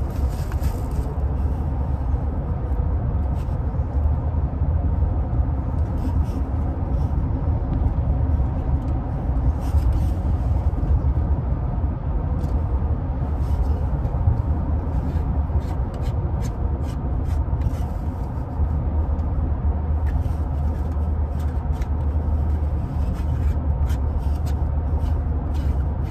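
Steady low rumble of a car's road and engine noise inside the cabin while driving. Scattered light clicks and rustles of plastic parts and cardboard being handled.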